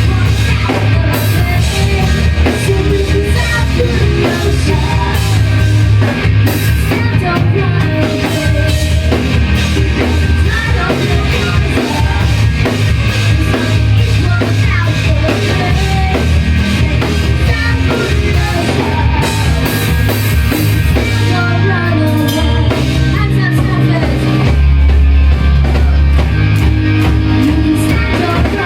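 Live rock band playing a loud, full-band song: drum kit, distorted guitars and bass, with some vocals.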